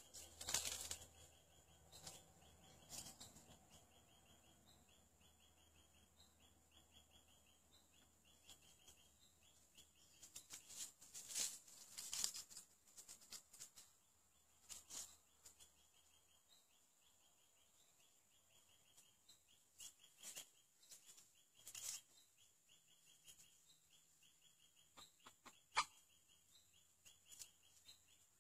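Quiet forest ambience. A faint, high chirping repeats several times a second throughout, with scattered rustles and a sharp click or two.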